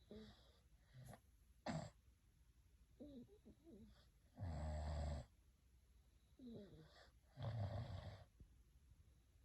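A person snoring: two loud snores, about four and a half and seven and a half seconds in, each just under a second long, with softer, shorter breathing sounds before them.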